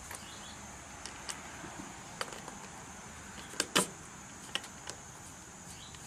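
A few short, light clicks and taps, the loudest a close pair a little under four seconds in, over a steady high-pitched hiss of outdoor background.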